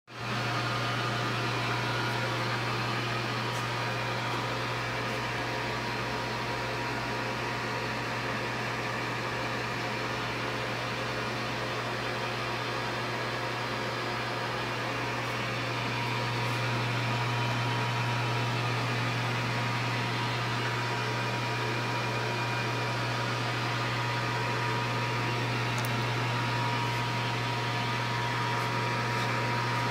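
Victor 1640B engine lathe running, spindle turning with no cut being made: a steady motor hum with a faint steady whine above it, a little louder from about halfway through.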